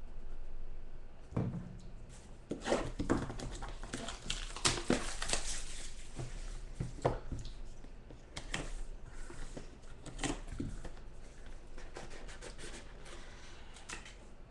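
Trading cards and their packaging being handled on a table: irregular rustling, scraping and light clicks.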